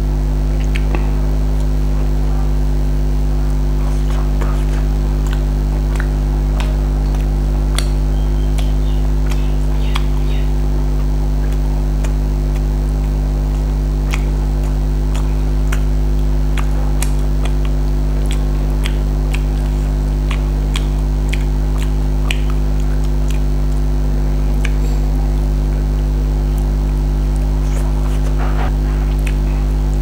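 Close-miked chewing and wet mouth clicks of a person eating a chicken leg by hand, heard as scattered short clicks. Under them runs a loud, steady low hum.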